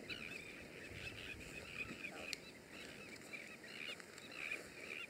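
King penguins calling in a colony: a faint chorus of many short, overlapping honking calls, repeating all the way through.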